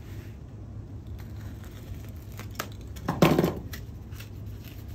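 Utility knife blade slicing down the length of a foam pipe-insulation sleeve, soft scraping and tearing, with a louder rustling scrape about three seconds in as the foam is handled and pulled open.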